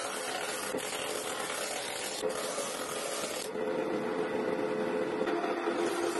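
Bench disc sander running with a wooden part pressed against the abrasive disc: a steady rasping hiss of sanding over the motor's hum. About three and a half seconds in the hiss drops away and the machine's hum comes to the fore.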